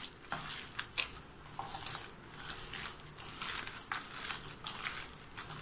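Hand mixing grated cucumber with semolina (rava) in a stainless steel bowl: irregular short rustling and squishing sounds as the fingers work the wet mixture.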